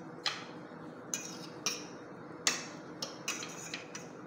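Eggs and sweet corn being beaten in a ceramic plate with a metal utensil, which clinks sharply against the plate about eight times at an uneven pace.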